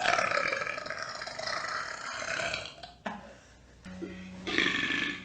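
A man's long drawn-out burp lasting nearly three seconds. After a short break comes a second, shorter sound near the end.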